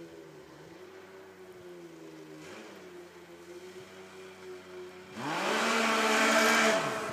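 Yamaha Nytro snowmobile's four-stroke triple, fitted with an aftermarket exhaust and Ultra Q silencer, running steadily at low revs. About five seconds in it is throttled hard, the engine note climbing then dropping back as the throttle is released.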